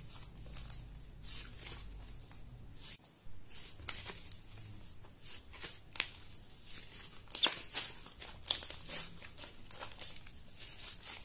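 Slime being stretched, folded and squeezed by hand, giving irregular sticky clicks and crackles, with a few louder pops about two-thirds of the way through.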